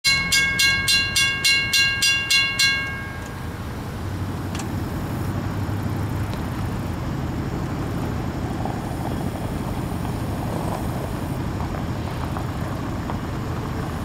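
A bell rings in quick strikes, about three a second, and stops about three seconds in. Then a steady low rumble of approaching diesel freight locomotives, a GE ES44AH leading an EMD SD70ACe.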